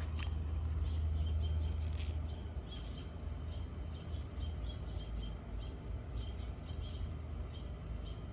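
A bird chirping over and over, short high chirps about two a second, over a steady low rumble.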